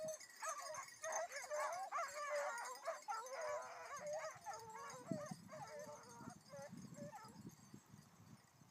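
A pack of basset griffon vendéen hounds giving tongue together on a hare's scent: many overlapping high yelping cries that thin out and stop about seven seconds in. Low thumps of footsteps through grass in the second half.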